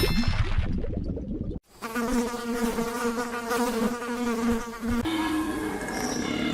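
An insect buzzing in a steady drone, starting after a short stretch of low rumbling noise about a second and a half in; the buzz changes pitch slightly about five seconds in.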